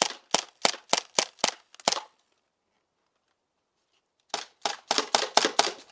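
Umarex CO2 gas-blowback airsoft Uzi firing in quick succession: a rapid string of sharp shots, about four a second, then a pause of about two seconds and a second rapid string near the end.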